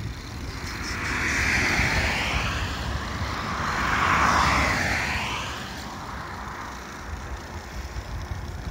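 A passing road vehicle: two swells of vehicle noise, about three seconds apart, that rise and fade away. The second swell is the louder.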